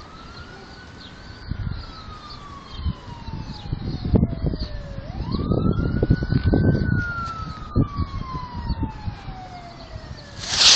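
Emergency vehicle siren wailing: the pitch rises quickly, then falls slowly for about four seconds, twice in a row. Uneven low rumbling noise runs beneath it and is loudest in the middle.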